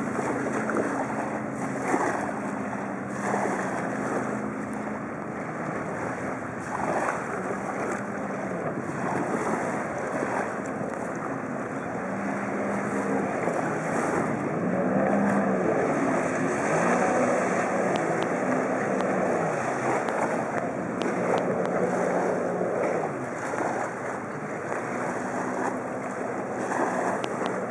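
Jet ski engine running at speed, its pitch rising and falling as it carves turns, with the rushing hiss of spray thrown off the water.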